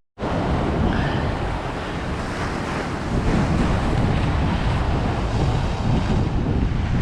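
Wind buffeting the microphone over waves washing against the jetty rocks, an even, steady rush after a brief gap of silence right at the start.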